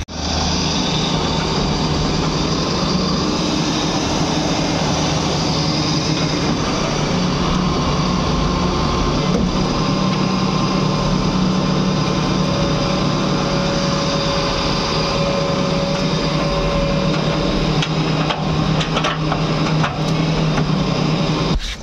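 Wheeled excavator's diesel engine running steadily under load, with a hydraulic whine that shifts in pitch as the boom and bucket dig soil and load it. A few short knocks come near the end.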